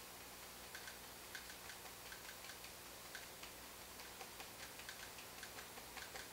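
Oil-paint-loaded brush tapping and stroking lightly on a stretched canvas, giving faint, irregular light ticks a few times a second as highlights are dabbed onto a pine tree.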